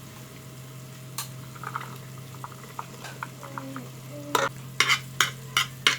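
Garlic and onion frying in oil in a pan while a spatula stirs them, with light scrapes and clicks of the utensil against the pan that come sharper and more often near the end. A steady low hum runs underneath.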